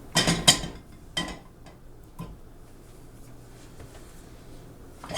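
Cookware and utensils clattering in a kitchen: a quick cluster of knocks in the first second, single knocks a second later and again about two seconds in, faint scattered taps after that, and another loud clatter at the very end, over a steady low hum.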